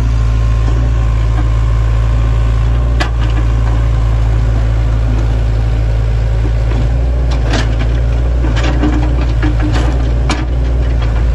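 Sany excavator's diesel engine running steadily, with scattered sharp knocks and clanks: one about three seconds in and a cluster in the second half.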